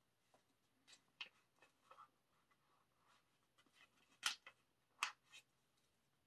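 Photocards and album packaging being handled by hand: soft rustles and light clicks of card against card, with two sharper taps a little after four and five seconds in.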